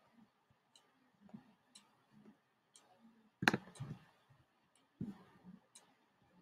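Faint, even ticking about once a second, with two louder bursts of clicking and a dull knock about three and a half and five seconds in as the computer is worked to end a screen recording.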